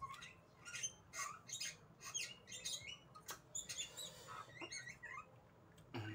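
Small birds chirping: quick high chirps and squeaks, several a second, some sliding in pitch. A soft low knock near the end.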